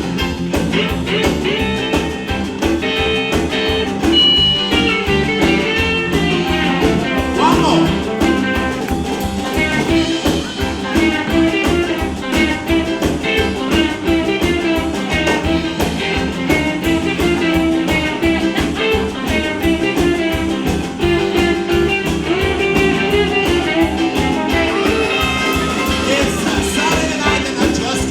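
Rock and roll band playing a boogie-woogie number: guitar over a steady drum beat.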